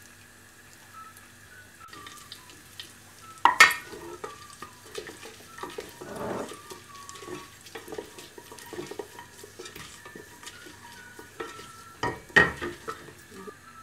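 Whole spices frying in hot oil in an aluminium pressure cooker: the oil starts sizzling about two seconds in, and a wooden spatula stirs and scrapes them around the pot, with two sharp knocks against the metal, one a few seconds in and one near the end.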